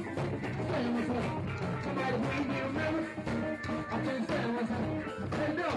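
Live band playing, with electric guitar prominent over a steady beat.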